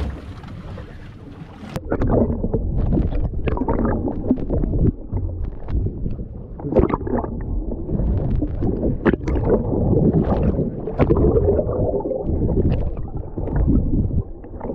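Underwater camera audio: muffled rushing and gurgling of water against the housing, with many small knocks and clicks, starting suddenly just under two seconds in. Before that, wind on the microphone above the water.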